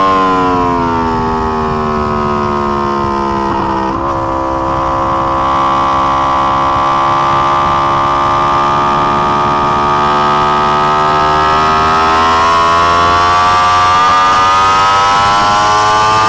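A 2020 Yamaha R1's crossplane inline-four engine on track. The revs fall for about four seconds, with a short break in the note, then the engine runs steadily at lower revs and climbs again toward the end.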